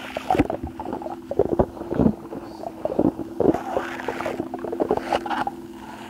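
Close-up wet squelching and sticky crackling of a squishy squid toy being squeezed and pulled, in irregular pops several times a second, over a faint steady hum.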